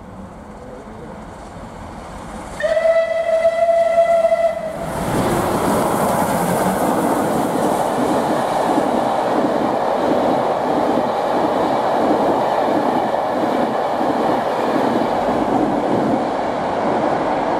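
Rebuilt Bulleid West Country Pacific steam locomotive 34046 'Braunton' approaching at speed and sounding its steam whistle in one steady blast of about two seconds. It then rushes past with its train, the coach wheels clattering over the rail joints in a steady repeating rhythm.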